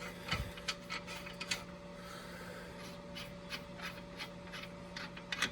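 Light metallic clicks and rattles from hand tools working the strut-to-spindle bolts loose. The clicks are irregular, closer together in the first half and sparser later, over a faint steady hum.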